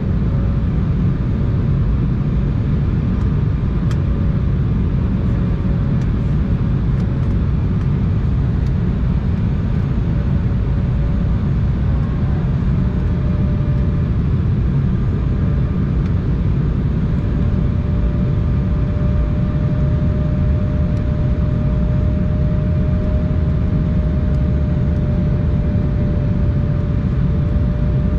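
Steady cabin noise of an Embraer 175 jet on final approach: the low rumble of airflow and its two turbofan engines, with a thin steady whine that steps slightly higher about halfway through.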